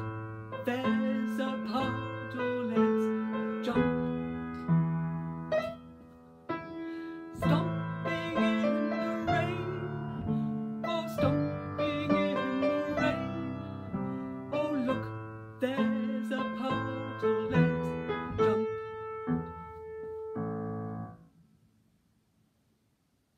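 Piano playing a tune with notes struck in a steady rhythm, ending on a held note about 21 seconds in and then near silence.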